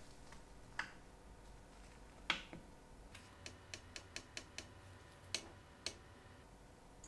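Short sharp clicks from the touch buttons of an Elmasonic Select ultrasonic cleaner's control panel being pressed: two single presses, then a quick run of about eight taps as the timer is stepped up, then two more.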